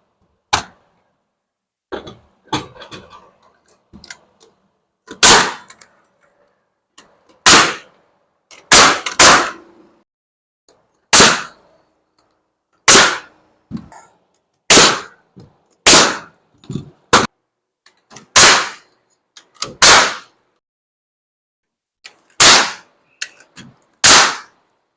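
Nail gun firing about a dozen single shots, one every one to two seconds, each a sharp loud bang with a short tail. Lighter knocks of wood being handled come before the first shot.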